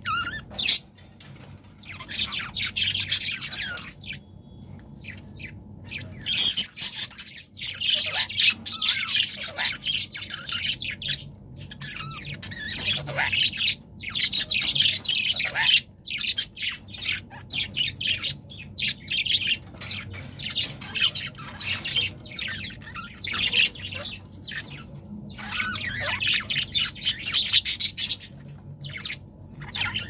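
Budgerigars chattering and chirping in bursts of a few seconds, with short pauses between them.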